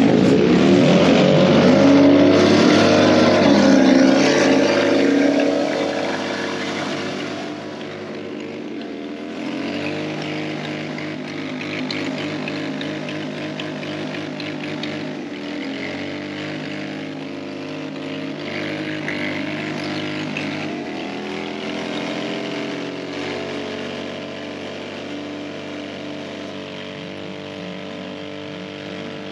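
Pickup truck doing a burnout: its engine is revved hard and held at high revs with the rear tyres spinning. It is loudest for the first five seconds or so, then keeps running at high revs a little quieter, with a couple of steps in pitch.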